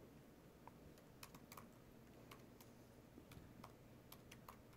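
Faint typing on a laptop keyboard: irregular, separate keystrokes.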